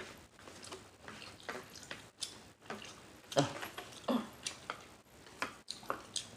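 Mouth smacking and chewing while eating rice noodles: an irregular run of short, wet clicks and smacks, a few a second, loudest around the middle.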